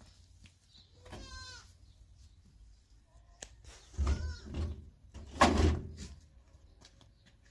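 Livestock bleating: a quavering bleat about a second in and another call about four seconds in. Near the middle comes the loudest sound, a broad scraping clatter as the sheet-metal door is pulled open.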